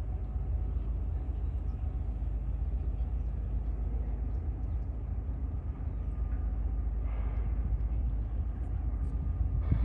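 Tugboat's diesel engine running under steady load across the water as it pushes a log raft: a continuous deep drone with faint steady tones above it.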